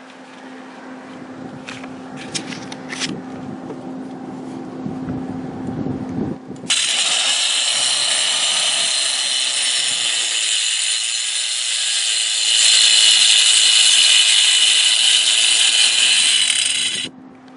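Chicago Electric circular saw with a diamond blade cutting into chimney masonry: a loud, high-pitched grinding starts abruptly about seven seconds in, grows louder past the midpoint, and stops suddenly near the end. Before the cut, a low rumble builds.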